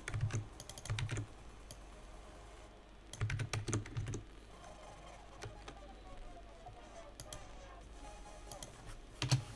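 Computer keyboard being typed on in two short bursts of key clicks, with a few single key presses later.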